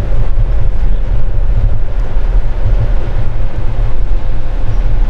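Loud, uneven low rumbling noise buffeting the microphone, with no distinct sounds standing out.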